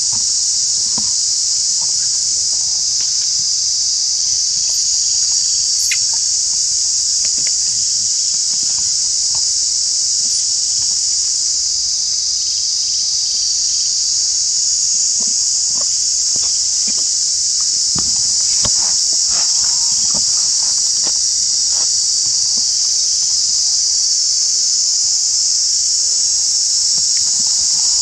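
Loud, steady, high-pitched buzzing of an insect chorus that runs without a break, with faint scattered ticks and rustles underneath.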